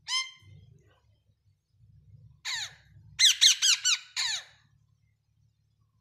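Caged parakeets squawking: one short harsh call at the start, then, about halfway through, a run of five or six sharp screeches that each fall in pitch.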